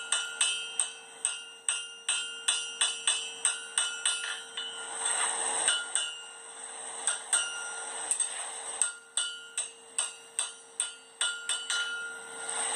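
Blacksmith's hammer striking hot iron on an anvil, each blow ringing, in quick runs of about two or three blows a second with a couple of short breaks.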